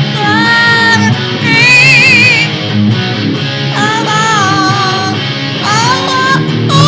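Electric guitar playing rock chords while a parrot sings along with a series of high calls, one of them wavering.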